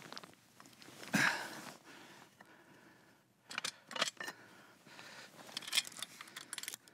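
Metal clanks and chain rattles from a high-lift ratchet jack being set down on a metal base plate and its steel chain and shackle being handled. The loudest clank comes about a second in, followed by lighter clinks and rattles.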